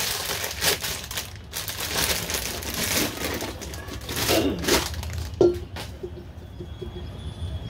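Thin plastic bag crinkling and rustling as it is pulled out of a clay pot and handled, loudest in the first five seconds, with one short knock about five and a half seconds in; the crinkling then quietens to light handling of the cord.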